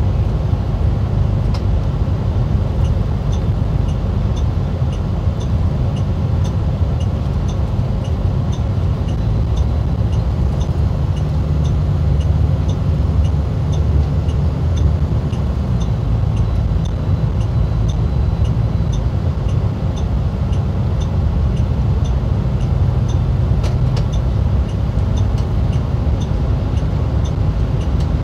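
MCI D4505 motorcoach heard from inside at highway speed: a steady low diesel engine drone and road noise, its note shifting slightly about halfway through. Faint regular ticking runs along with it, about twice a second.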